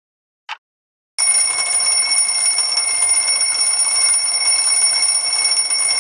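A mechanical twin-bell alarm clock: one tick, then a second later a loud steady ringing as its hammer rattles fast against the bells, cutting off abruptly at the end.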